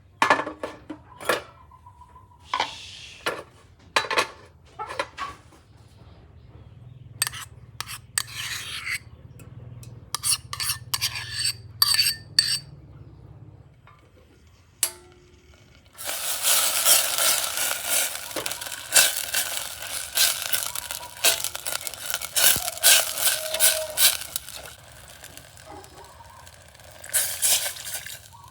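Metal utensils clinking and scraping against a pot or pan. About halfway through, a dense crackling hiss like food sizzling in a hot pan starts suddenly, with stirring clicks running through it.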